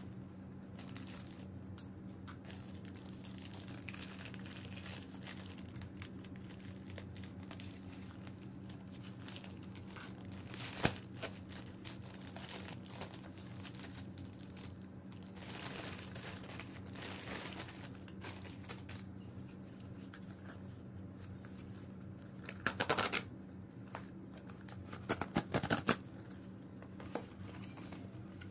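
Plastic mailer bag crinkling and tearing as it is opened by hand, with one sharp click about eleven seconds in. Near the end there are loud ripping sounds as a cardboard box's tear strip is pulled open. A steady low hum runs underneath.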